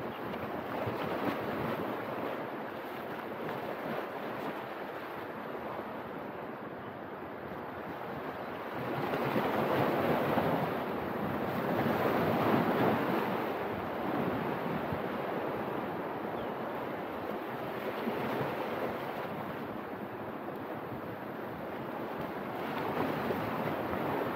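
Wind and lapping water: a steady rushing noise that swells louder about ten seconds in and again near the end.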